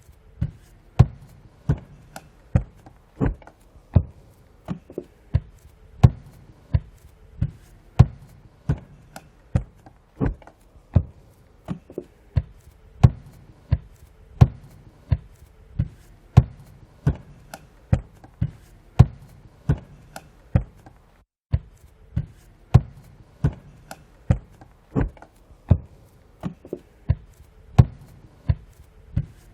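Footsteps on a wooden floor: shoes striking the boards at a walking pace, about one and a half steps a second, each a sharp knock with a low thud, with a brief break about two thirds of the way through.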